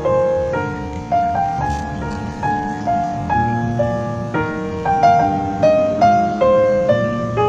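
Background piano music: a slow melody of single notes, each struck and left to ring, about two a second.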